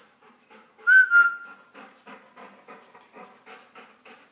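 A short, loud whistle about a second in, calling a dog, then a dog panting, about three breaths a second.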